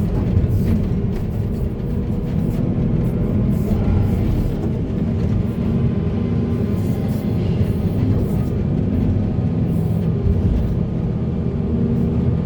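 Heavy diesel engine of earthmoving machinery running steadily, with short knocks and clatter now and then.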